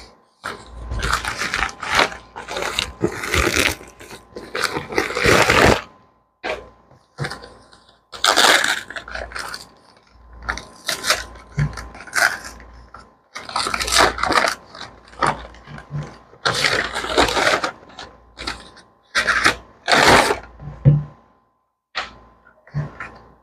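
Plastic postal mailer crinkling and rustling in repeated irregular bursts as it is handled and opened.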